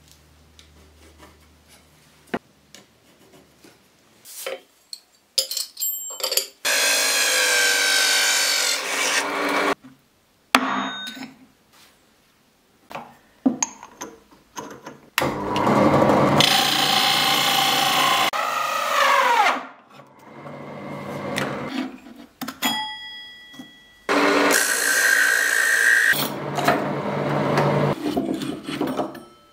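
Drill press driving a large hole saw through plywood in three long stretches, its motor winding down in falling pitch after the second. Before that, light taps and scrapes of marking out the board.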